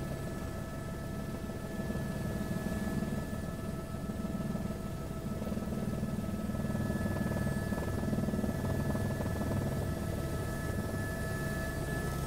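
Helicopter engine and rotor noise heard from inside the cabin: a steady low drone with a few thin steady whining tones above it.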